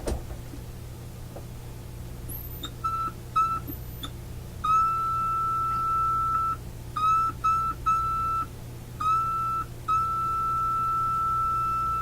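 Test tone from an audio signal generator played through a loudspeaker: a steady mid-pitched beep with overtones, switched on and off repeatedly, short beeps about three seconds in, then longer stretches, held steady from about ten seconds in. A brief very high whistle sounds just before the first beeps, and a click right at the start.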